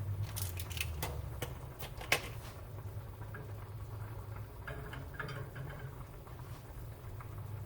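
Mustard seeds heating in olive oil in a pan, giving scattered small crackles and pops, most of them in the first couple of seconds, over a low steady hum.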